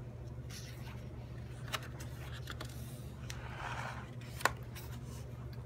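Quiet room noise over a steady low hum, with a few light clicks and a brief soft rustle, like small handling noises; the sharpest click comes about four and a half seconds in.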